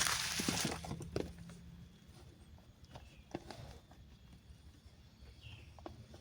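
Packaging crinkling loudly for about the first second, then fading into scattered light clicks and taps as the phone box and its contents are handled.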